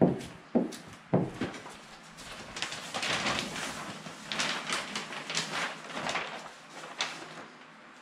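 A squeegee is pressed over clear adhesive film on a refrigerator's metal side, making short dull knocks about twice a second. From a couple of seconds in, the film's paper backing crinkles and rustles as it is handled and peeled for several seconds. A single stroke follows near the end.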